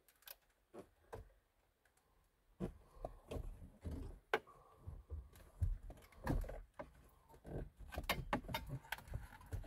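Factory head unit's metal case being wiggled out of the plastic dash opening: irregular clicks, knocks and scraping rattles, sparse at first and busier after about two and a half seconds.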